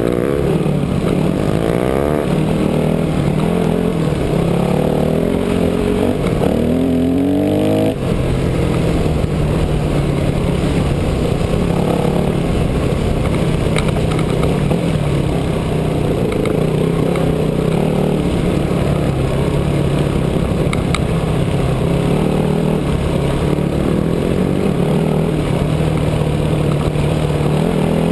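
2006 Yamaha WR250F four-stroke single-cylinder dirt bike engine running under way, its revs rising and falling repeatedly through the first eight seconds or so, then holding a steadier pitch.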